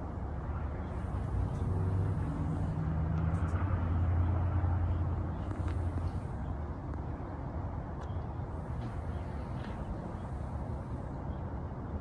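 Low background rumble with an engine hum that swells about four seconds in and fades again: a vehicle passing.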